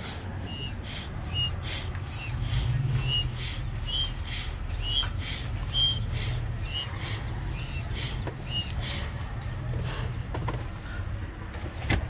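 Cigar-fed evap smoke machine pumping in rapid, regular strokes, about two a second, each with a short high squeak, over a steady low hum. The strokes push smoke into the truck's intake through the brake booster vacuum line to find a vacuum leak.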